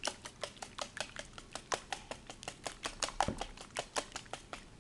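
Wire whisk beating eggs in a bowl, its tines clicking quickly and evenly against the bowl, about six clicks a second; the beating stops just before the end.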